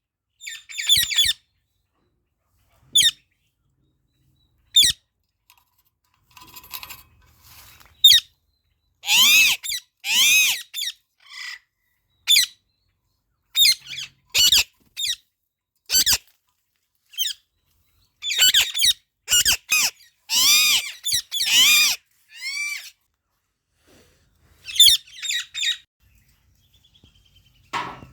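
Indian ringneck and Alexandrine parakeets calling: loud, harsh screeching calls, each rising then falling in pitch, some single and some in quick runs, with short silent gaps between them.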